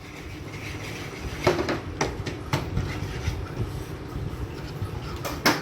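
Spoon stirring dry flour and sugar together, with irregular scraping and a few sharp clinks against the side of the container, the loudest near the end.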